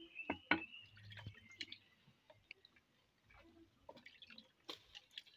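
A pestle knocking and pressing against a ridged earthenware grinding bowl as fufu dough is mashed, with soft squishing of the dough; sharp knocks in the first second and a half. Near the end, a bowl is dipped into a basin of water.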